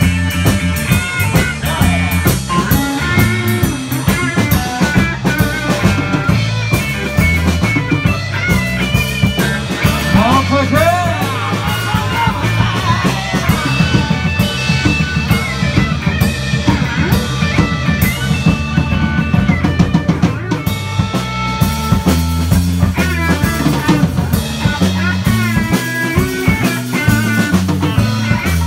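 A small band playing a blues song live, with electric guitar and a drum kit driving a steady beat, backed by bass and keyboard.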